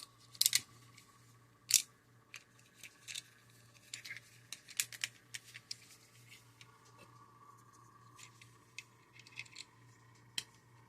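Hard plastic clicks and scrapes of an action figure and its clamp weapon being handled, opened and fitted: two sharper clicks in the first two seconds, then a string of lighter irregular clicks.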